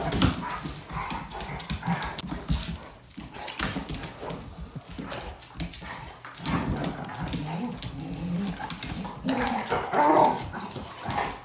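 Bluetick coonhound puppy and black-and-tan coonhound play-fighting: claws scrabbling and clicking on a hardwood floor, with low growling from about six seconds in and a louder growl or yip near the end.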